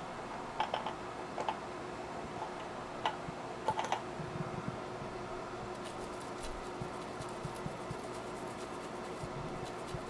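Light clicks and taps of hand tools at a micro-soldering bench over a steady fan hum. The clicks come in small clusters about a second in and again around three to four seconds, then turn to fainter ticking.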